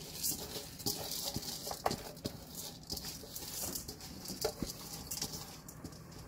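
Soaked white rice poured and pushed by hand from a metal bowl into a rice cooker pot of onions and garlic frying in olive oil: the oil sizzles with a steady hiss while the grains patter in with many small clicks. The sizzle thins out near the end.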